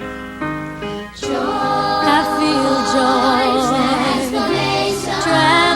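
Closing music: sustained instrumental chords, then singing voices with vibrato come in about a second in over a repeating bass note.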